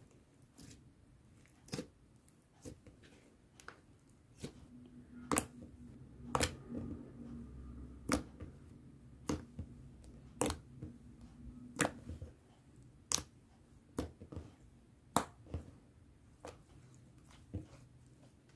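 Clear slime being worked by hand, giving sharp irregular clicks and pops about once a second.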